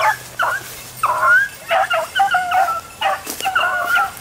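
Rabbit-hunting hounds giving voice on a rabbit's track, a run of short yelping bays one after another.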